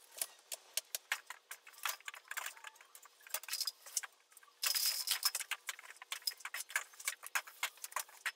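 Horizontal window blind slats rattling and clicking as a long-handled duster is worked over them: a fast, uneven patter of clicks, densest about halfway through.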